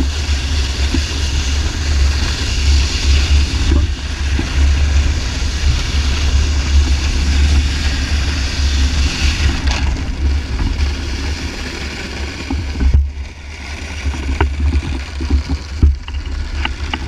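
Wind buffeting the camera microphone over the rushing hiss of a snowboard sliding across lake ice. There are a few sharp clicks and scrapes from the board near the end.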